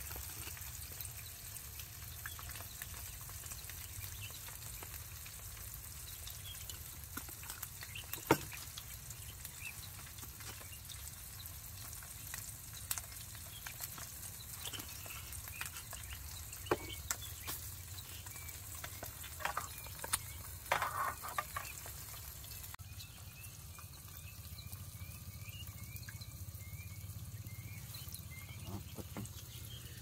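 Food frying in a pan with a steady sizzle. A few sharp clicks and knocks come through it, one about eight seconds in and a cluster around two-thirds of the way through.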